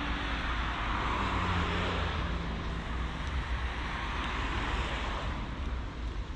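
A road vehicle passing close by: tyre and engine noise swells about a second in, then fades, over a steady low traffic rumble.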